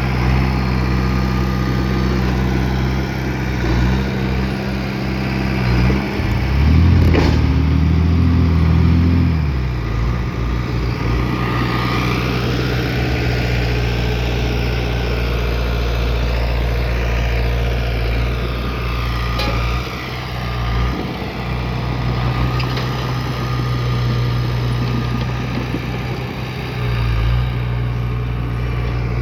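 Bulldozer's diesel engine running steadily; its note rises and grows louder for about three seconds a quarter of the way in, then settles back.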